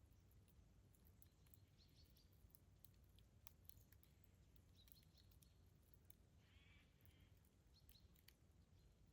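Campfire burning faintly: scattered sharp crackles and pops from the burning wood over a low steady rumble, with a couple of brief higher-pitched chirps.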